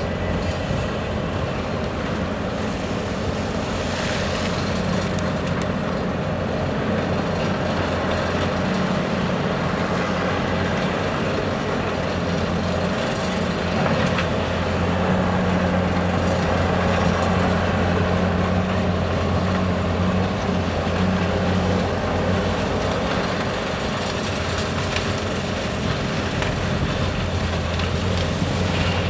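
Hyundai R520LC-9A excavator's diesel engine running under load with a steady low drone, a little louder in the middle.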